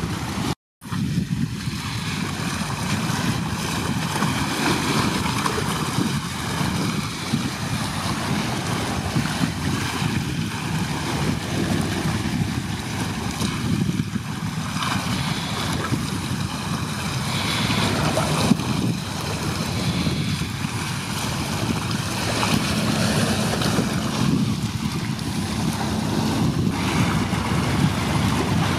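Wind buffeting the microphone over choppy sea water, with a steady rushing noise that is heaviest in the low end. The sound cuts out completely for a moment just after the start.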